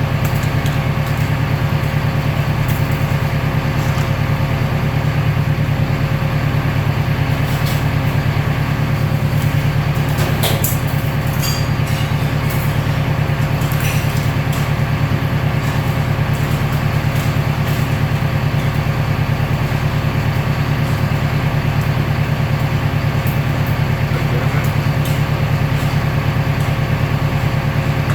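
Industrial recycling baler running, a steady low mechanical drone with a constant hum over it, and a few light clicks and rattles around the middle.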